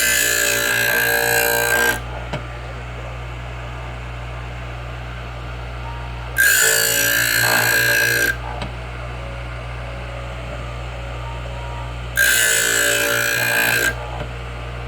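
Total Seal electric piston ring grinder running steadily, with three grinding passes of about two seconds each: one at the start, one just after the middle and one near the end. Each pass is the ring's end being ground about five thousandths at a time to set its end gap.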